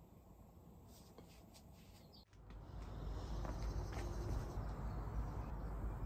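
Faint quiet at first, then about two seconds in, outdoor ambience: a steady low rumble with scattered light ticks and faint chirps.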